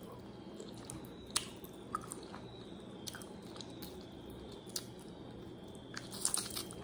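A person chewing a mouthful of chicken biryani close to the microphone, with scattered short wet smacks and clicks and a quick cluster of them near the end.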